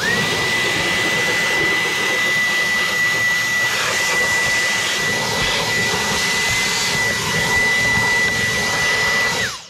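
Cordless handheld vacuum switched on and running steadily, a high whine over a rush of air as it sucks up metal drill shavings. It spins up quickly at the start and is switched off near the end, the whine dropping away.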